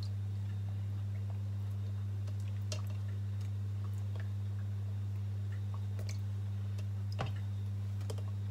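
A steady low hum, with faint wet clicks and taps as short mackerel are laid one by one into a plastic tub of salt water, and a slightly louder knock about seven seconds in.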